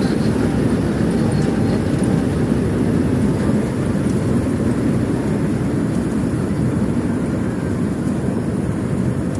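Rice harvesting machine running steadily, its engine sound low and unbroken.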